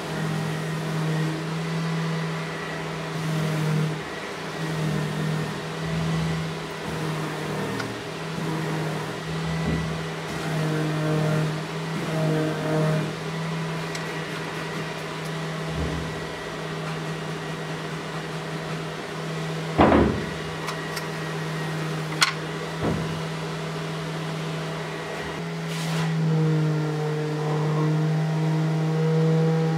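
A small electric motor hums steadily, like a fan or blower. A few sharp knocks and clicks sound over it, the loudest about twenty seconds in.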